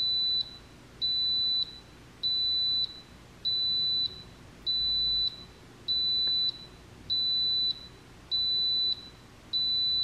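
Instant Pot Duo Nova electric pressure cooker beeping its end-of-cycle alert: a steady high beep about half a second long, repeating about every 1.2 seconds, nine times. It signals that the pressure-cook timer has run out.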